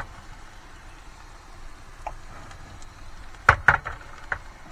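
Steady hiss of a single-burner camping stove heating a frying pan. About three and a half seconds in, a utensil clatters twice against the pan, with a fainter knock just after four seconds.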